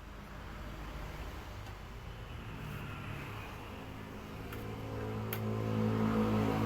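A small engine running, its speed and loudness rising over the last couple of seconds, with a few light clicks.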